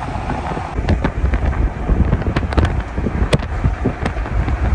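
Heavy wind buffeting the microphone of a phone filming from a moving car, a dense low rumble with scattered crackles.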